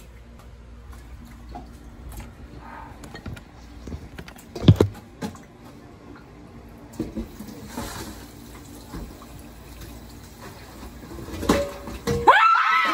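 Kitchen tap running into a sink while vegetables and chicken are washed under it, with a loud knock of a utensil or pan about halfway through. Near the end a woman lets out a high shriek, startled by a prank.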